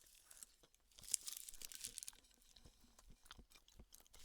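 Quiet eating sounds close to the microphone: a person chewing, with small clicks and crackles that are densest about a second in.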